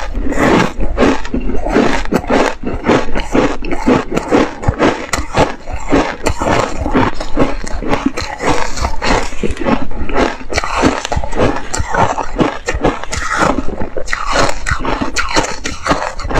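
Ice being chewed close to a clip-on microphone: a continuous run of rapid, loud crunches.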